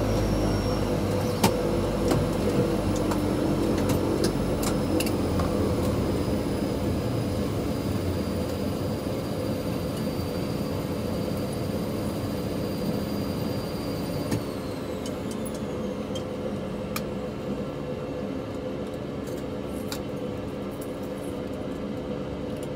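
DHC-6-300 Twin Otter's PT6A turboprop engines winding down after shutdown, heard from inside the cabin: a steady hum under several high turbine whines that slowly fall in pitch and grow quieter. The highest whines drop away sharply about two-thirds of the way through, with a few light clicks near the end.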